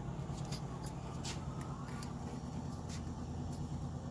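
A steady low mechanical hum, with a few faint short ticks scattered over it.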